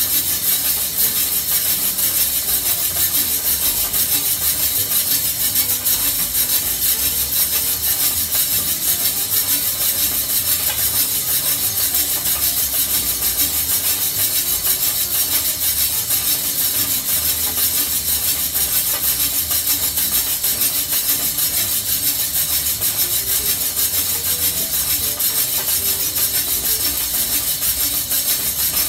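Coffee beans tumbling and rattling inside a rotating stainless steel drum roaster over heat, a steady dense rustling hiss with no breaks.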